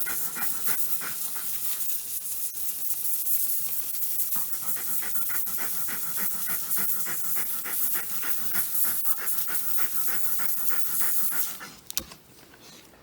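A golden retriever panting rapidly, about four pants a second, over the steady hiss of a CryoIQ PRO cryosurgery pen's gas jet during a freeze. Both stop about a second and a half before the end, leaving a single click.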